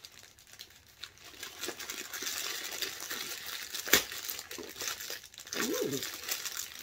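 A plastic mailing bag is pulled open and crinkled by hand, with a sharp snap of plastic giving way about four seconds in.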